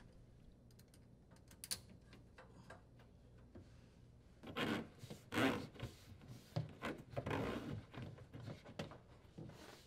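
Dishwasher drain hose and its rubber end fitting rubbing and scraping in soft, irregular strokes as it is fed through a hole in the cabinet wall, after a faint click about two seconds in.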